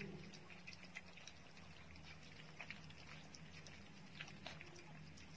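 Puppies eating wet rice from a bowl: faint, irregular small wet clicks of lapping and chewing.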